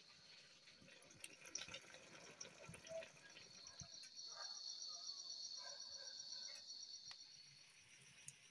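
Faint, high insect trill, a fast pulsing buzz, from about three seconds in until near the end, over a few faint kitchen clicks.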